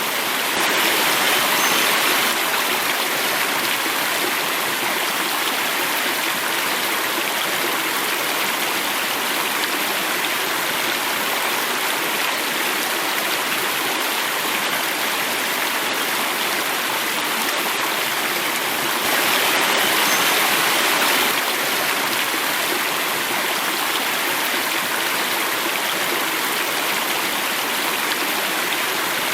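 Water running and falling in a natural stream, a steady rush that swells slightly twice, about a second in and again about twenty seconds in.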